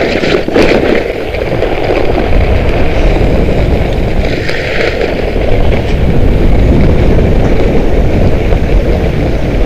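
Steady rushing wind on the microphone mixed with the scrape of Skki skis sliding over snow on a fast downhill run. There are a few sharp scrapes in the first second, over chunky broken-up snow.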